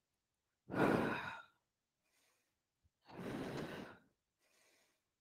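A woman breathing out hard through the mouth, twice, about two and a half seconds apart, with each crunch; the first breath is louder.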